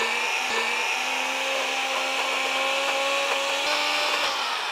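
Personal bullet-style blender motor running steadily under load, puréeing simmered dates with orange juice. Its hum steps up slightly in pitch about half a second in and shifts again near the end before it winds down.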